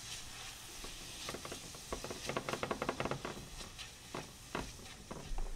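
Garlic, ginger and shallots sizzling in hot oil and chicken fat in a pan, a steady hiss with many sharp crackles, busiest a couple of seconds in. The aromatics are frying toward golden brown and are almost there.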